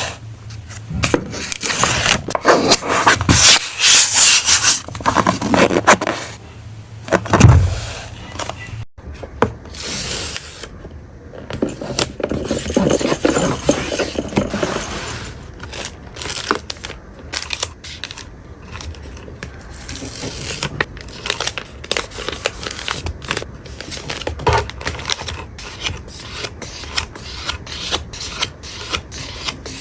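Close-up handling of stationery and packing items: scraping and rubbing, then a run of many small, sharp clicks and taps in the second half.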